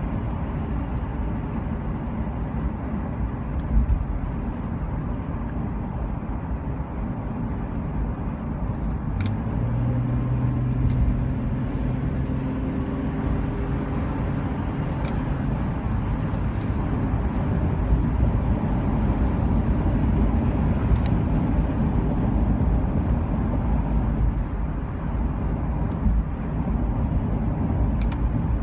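Steady low rumble of a vehicle, with a low engine hum coming in about a third of the way through and a few faint clicks.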